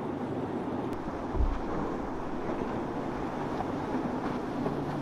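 Motorboat engines running as boats pass through an ocean inlet, heard under wind buffeting the microphone, with a louder gust thump about a second and a half in.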